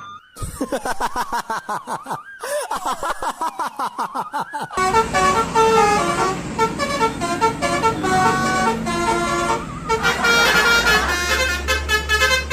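A Basuri-style multi-tone 'telolet' bus horn sounding. It warbles up and down for the first few seconds, then plays a tune of short stepped notes. A low rumble joins near the end.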